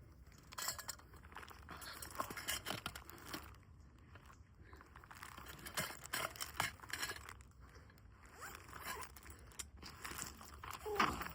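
Footsteps crunching on a dry dirt trail, with rustling and crinkling from dry brush and the hiker's clothing. Near the end, a louder short sound falls in pitch.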